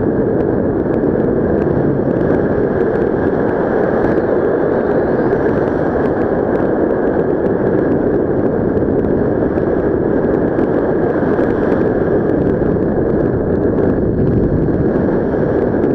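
Wind from paragliding flight rushing steadily over the camera's microphone, a loud even roar of airflow.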